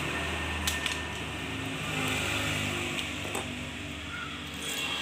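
A low steady engine-like hum that fades out about two seconds in, with a few light clicks and knocks of scrap copper and the sack being handled.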